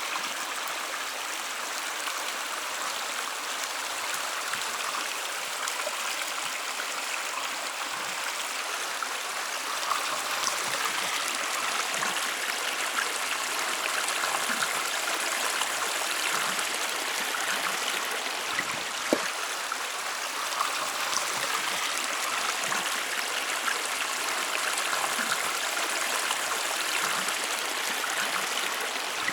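Mountain stream running: a steady rush of water, with one or two brief splashes standing out.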